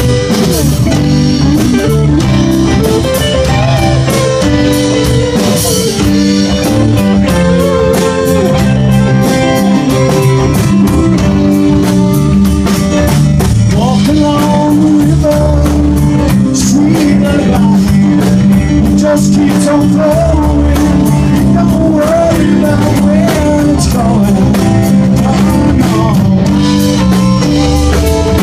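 Live rock band playing a song: electric guitar, bass and drum kit keeping a steady beat, with a singer's voice over them.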